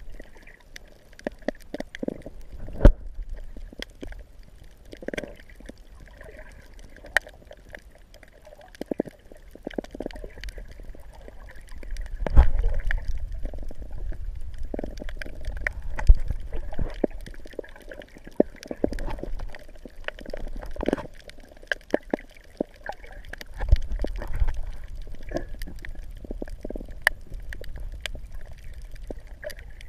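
Seawater sloshing and gurgling, with many small clicks and pops and low surges that swell louder twice, around the middle and again near the end.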